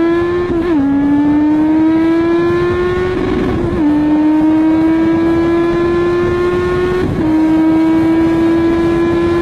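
Superbike engine at full throttle, revving high and climbing in pitch as the bike accelerates, with three quick upshifts that each drop the pitch: about a second in, near the middle, and late on.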